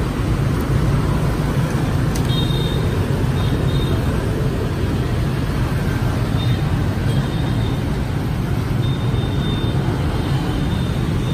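Steady street traffic noise, a continuous low hum of road vehicles running nearby.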